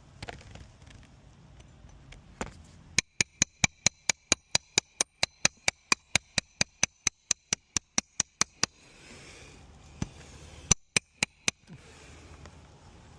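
A fast run of about thirty sharp hammer blows on metal, about five a second, each with a brief metallic ring; after a short pause, a few more slower blows.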